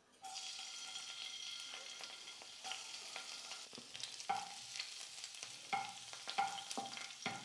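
Finely chopped garlic sizzling faintly in a little hot oil in a frying pan, stirred with a wooden spatula. From a few seconds in, the spatula strokes against the pan come at irregular intervals over the steady sizzle.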